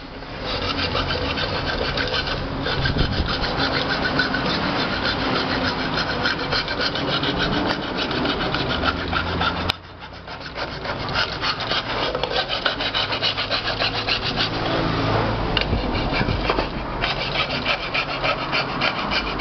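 Flat hand file rasping in rapid strokes along the rim of an aluminium pressure-cooker lid, with a short break about ten seconds in. The edge is being filed down so the rubber gasket will no longer catch on it.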